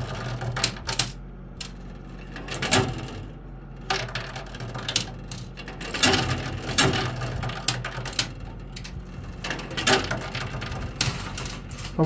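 10-peso coins clinking and clattering as they drop onto the playfield and coin piles of a coin-pusher arcade machine, in clusters every second or two, over the machine's steady hum.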